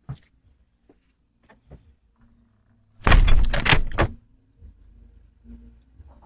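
A quick burst of several loud bangs and rattles at a door, lasting about a second and starting about three seconds in. A few faint clicks come before it.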